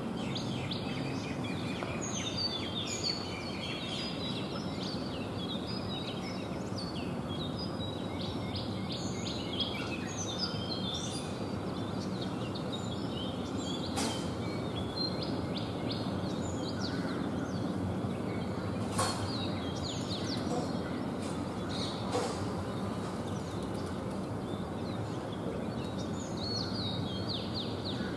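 Many short bird chirps and calls over a steady background rumble, with a few sharp clicks in the second half.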